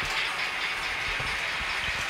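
Sound decoder of a TT-scale model steam locomotive playing a continuous steam hiss with soft chuffs. A few low knocks come in about the middle and near the end.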